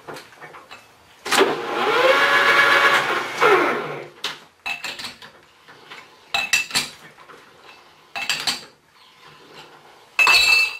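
Lathe motor briefly switched on: the spindle spins up in rising pitch, runs for about two seconds and stops. Then come several short metallic clanks and rattles of the chuck key and jaws as the bar stock is set in the four-jaw chuck, the loudest near the end.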